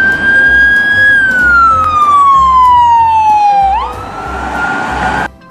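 A loud siren wail: one long tone that holds, slides slowly down, swoops back up about four seconds in, and cuts off suddenly near the end.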